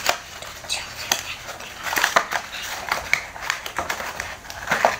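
Small cardboard toy-parts box being opened and handled: irregular crackling, rustling and tearing of thin card and paper, louder about two seconds in and again near the end.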